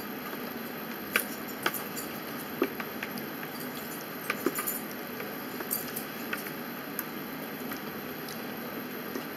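Cutlery clicking against food trays at a meal: a fork tapping and scraping in a takeout tray, a dozen or so short, sharp clicks scattered over a steady hiss.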